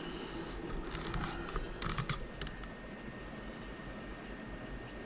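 A few quick clicks and taps at a computer keyboard and mouse, bunched in the first couple of seconds, over a steady low background hum.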